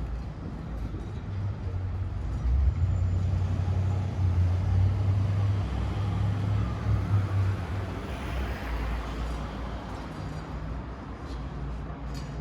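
Street traffic: a motor vehicle's engine hums low and steady close by, growing louder for several seconds. It then passes with a rush of tyre noise that fades away.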